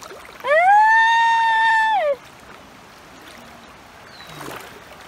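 A person's long, high wordless squeal, rising, held for about a second and a half, then falling away, a reaction to wading into cold river water.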